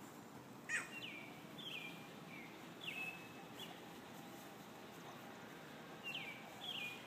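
Faint bird chirps: short high notes that slide down in pitch, repeated every half second or so. They run through the first few seconds and come back about six seconds in, over a low steady outdoor background.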